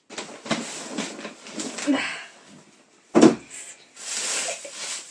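Cardboard gift box being opened: rustling as the lid is worked loose, a single sharp thump about three seconds in, then crinkly rustling of shredded paper filler as hands go into the box.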